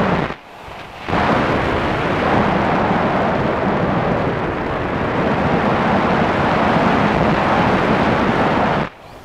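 Rumbling rush of airflow and motor noise picked up by a Multiplex Solius RC glider's onboard camera in flight. It is brief at the start, then comes back loud about a second in and cuts off abruptly near the end.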